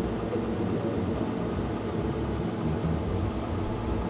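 Jeep Grand Wagoneer running, a steady engine and vehicle rumble heard from inside the cabin.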